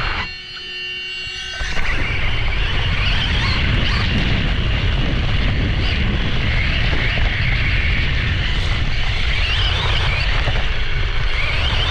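Losi Promoto MX RC motorcycle's brushless electric motor whining, its pitch rising and falling with the throttle, over a heavy low rumble of wind and dirt on the on-board camera's microphone. The noise drops away for about a second and a half near the start, then comes back loud.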